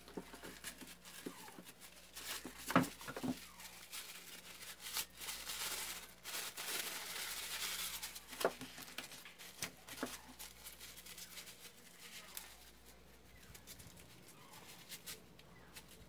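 Paper towel rustling and rubbing as grease is wiped off a plastic fan's screw thread, with scattered light clicks and taps of the plastic parts. A soft, denser stretch of rubbing comes about halfway through.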